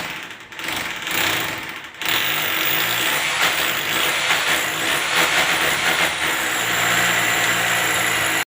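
A machine running steadily, changing abruptly about two seconds in to a louder, fuller noise. Faint thin tones rise and fall high above it.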